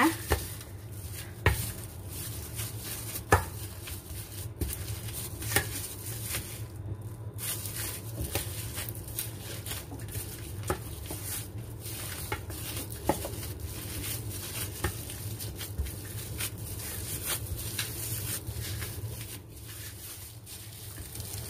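Steamed cassava being pounded and ground in a stainless steel bowl with a plastic-wrapped pestle (ulekan): irregular dull knocks against the bowl as the cassava is mashed smooth.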